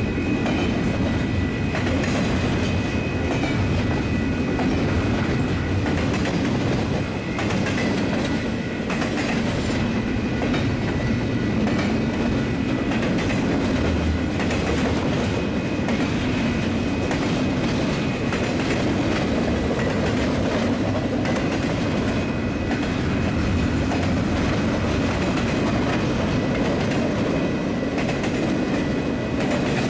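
Union Pacific double-stack intermodal freight train rolling past: a steady rumble of the well cars' steel wheels on the rails, with faint clicks and a faint high steady tone over it.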